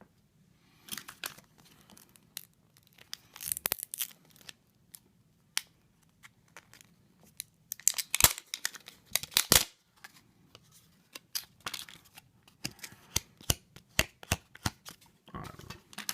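Thin plastic film layers from an iPod display being peeled apart and handled: irregular crinkling and tearing with scattered small clicks, coming in bunches.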